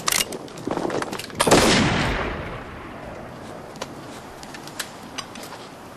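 A single flintlock rifle shot about a second and a half in, a sudden loud crack whose echo dies away over the next second and a half. Before it there are a sharp click and a brief clatter.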